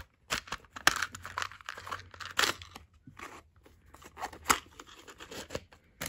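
Paper and cardboard packaging rustling and crinkling as a small white drawer-style gift box is slid shut and handled among tissue paper, with several sharp crinkles.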